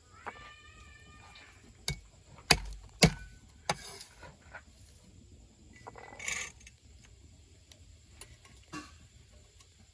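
A cleaver chops four times on a thick wooden chopping block, sharp knocks about half a second apart, cutting shallots. A brief high squeak comes just before the chops, a short rustle follows a few seconds later, and there is one more knock near the end.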